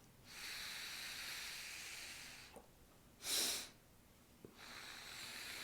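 Rescue-breathing exercise for vocal cord dysfunction: a fine stream of air blown out through pursed lips for about two and a half seconds, then a short, louder sniff in through the nose, then another slow pursed-lip exhale.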